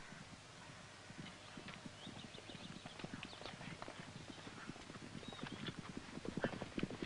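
Horse hoofbeats approaching at a quick pace, growing steadily louder.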